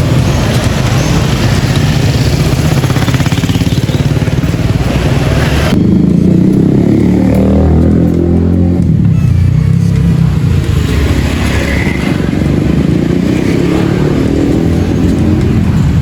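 Street traffic dominated by motorcycle engines. About six seconds in, the sound changes abruptly to a closer, lower engine drone that rises and then fades.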